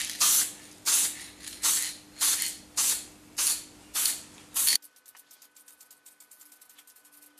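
Aerosol spray-paint can spraying in short bursts, about eight hisses in quick succession roughly every half second or so. The bursts stop abruptly near the middle, and quieter rapid fine clicking follows.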